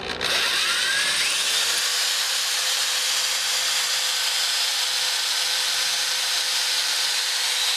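Electric drill with a long pilot drill bit boring into a stucco wall. It starts about a quarter second in with a rising whine as the motor spins up, then runs steadily under load.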